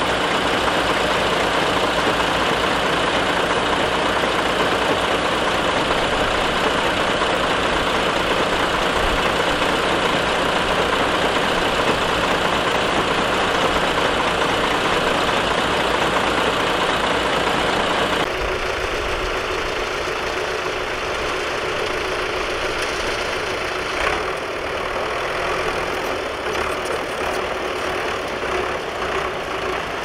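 Heavy diesel engines of a small crawler bulldozer and a stuck dump truck running during a cable tow. The sound changes abruptly about 18 seconds in, to a lighter engine run with a steady whine and a few faint ticks.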